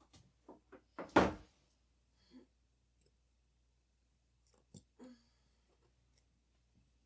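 Small tools and camera parts clicking and knocking on a workbench during disassembly: a few quick clicks, one louder knock about a second in, and more sharp clicks near the five-second mark.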